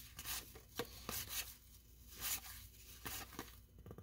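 Faint rustling and scraping of cardboard baseball cards being slid off one stack and onto another, in a handful of short strokes.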